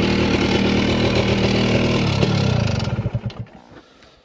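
Honda 250cc two-stroke dirt bike engine running steadily, then about two seconds in it slows, the firing pulses spreading out, and it dies away to a stop.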